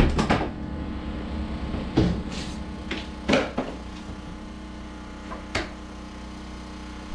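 Irregular knocks and bangs from demolition work on the house's interior walls, about half a dozen over several seconds, the loudest just after the start and about three and a half seconds in. A steady low hum runs underneath.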